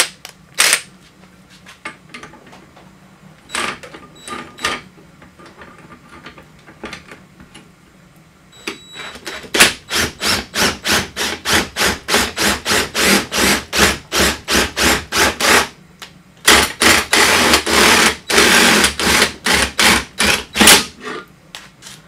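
Cordless impact driver hammering as it turns a scissor jack's screw through a shop-made quarter-inch hex-shank adapter, in fast even strokes. There are two runs, the first about ten seconds in and the second after a short pause, with a few single knocks before them.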